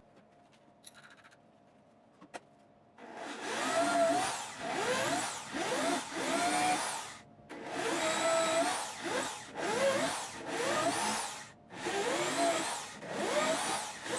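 Electric hand drill boring 7/32-inch bolt holes through a wooden longboard deck, opening up pilot holes. After about three seconds of quiet it runs in about eight short bursts of a second or so each, the motor's pitch rising and falling within each burst as the bit bites into the wood.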